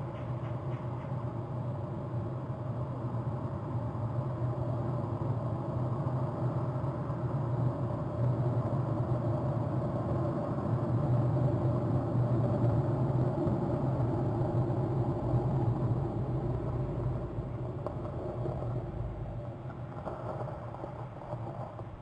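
Low, steady engine hum of a passing motor, growing louder toward the middle and fading again near the end.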